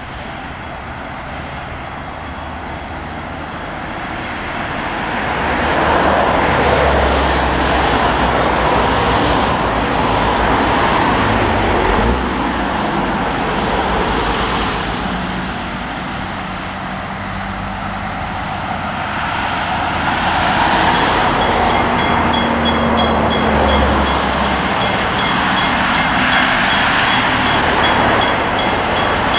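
Steady rushing rumble of an approaching narrow-gauge steam train, swelling about six seconds in, easing a little around sixteen seconds, and building again from about twenty seconds as the locomotive nears.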